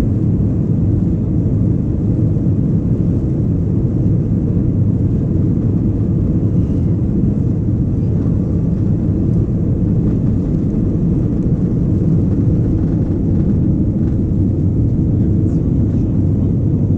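Airbus A320 engines at takeoff thrust with the rumble of the takeoff roll, heard from inside the cabin as a steady, deep noise; the aircraft rotates and leaves the ground near the end.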